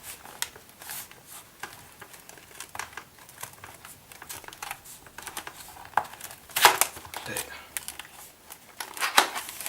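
Keyboard packaging being handled and unpacked: irregular crinkling and rustling with scattered clicks and taps, loudest about two-thirds of the way in and again near the end.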